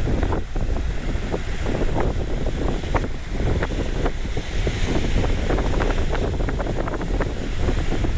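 Strong wind buffeting the microphone with a constant low rumble and crackle, over the rush of sea waves.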